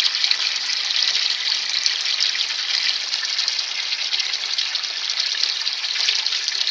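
Water rushing steadily as a bottle-built bell siphon drains the grow bed down its standpipe into a bucket; the siphon is running and has not yet broken.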